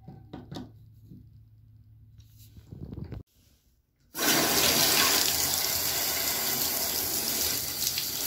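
Faint clicks and knocks of parts being handled, then, after a short break, water running hard and steady from a Moen single-handle faucet fitted with a new 1225B cartridge: the repaired faucet is flowing again.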